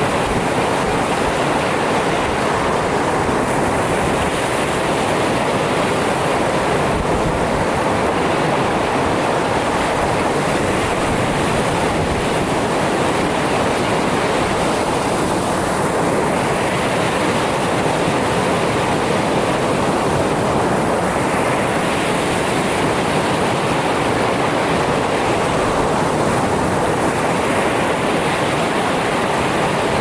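Lake Erie surf breaking and washing up a pebble and gravel beach: a steady rush of water, with waves swelling and fading about every five seconds.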